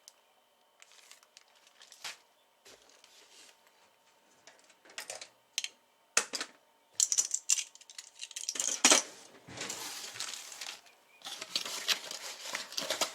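Hands handling small items and packaging: scattered light clicks and taps, then denser rustling and crinkling with more clicks from about seven seconds in.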